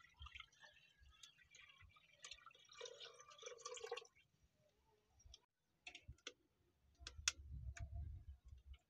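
Near silence with faint, scattered clicks and clinks from cooking at a wood-fired clay stove, and a low rumble late on.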